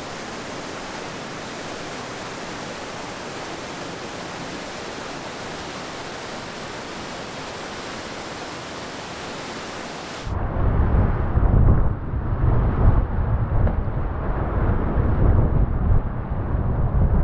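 Whitewater rapids rushing in a steady roar. About ten seconds in this gives way abruptly to a louder, deeper, fluctuating rumble of rushing water, with wind buffeting the microphone, heard from a kayak in the rapids.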